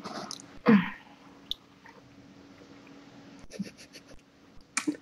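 A newborn kitten being handled gives one short, sharp spit near the end. About a second in there is a brief louder sound that falls in pitch, and a faint steady hum runs underneath.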